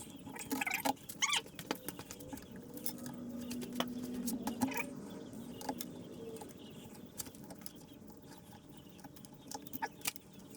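Broken window glass being pried and pulled off old glue in a window sash: scattered clicks and ticks of glass pieces, with a few small squeaks in the first couple of seconds.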